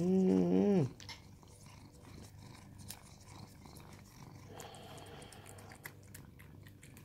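A cat licking creamy paste treat from a squeeze tube, with many small, rapid wet clicks of its tongue. It opens with a louder, low, hummed voice sound lasting about a second.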